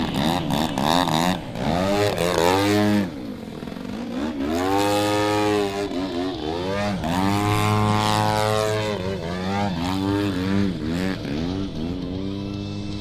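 Desert Aircraft DA-120 twin-cylinder two-stroke petrol engine on a giant-scale RC Edge 540 aerobatic plane, running loud with its pitch rising and falling again and again as the throttle changes and the plane passes by.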